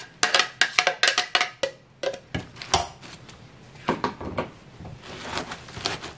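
Quick sharp knocks and clicks of a spoon tapping and scraping the last blended chili seasoning out of a plastic blender jar over a stainless steel tray, then softer wet rustling as hands begin working the seasoning into the cabbage leaves near the end.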